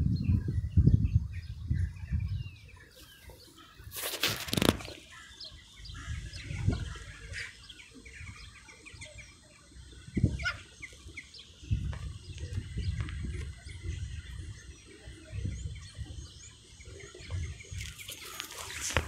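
Small birds chirping in the background over a low wind rumble, with two short loud bursts of noise: one about four seconds in and one near the end.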